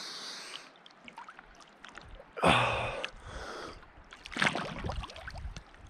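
A person splashing in cold water while dunking to the shoulders for a swim, with sharp gasping breaths. Two louder bursts of splash and gasp come, one a little before halfway and one about three-quarters through.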